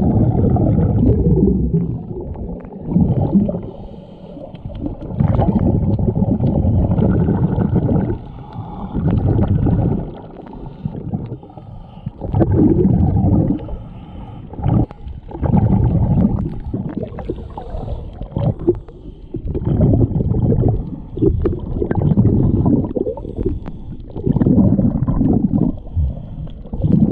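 Scuba diver breathing through a regulator, heard underwater: exhaled bubbles gurgle out in deep, muffled surges every two to three seconds, with quieter gaps between breaths.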